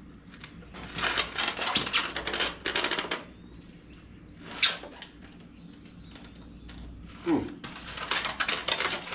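Packing material rustling and crinkling in stretches as parts are worked out of a shipping box, with a sharp knock about halfway through and a short squeak falling in pitch shortly before the last stretch of rustling.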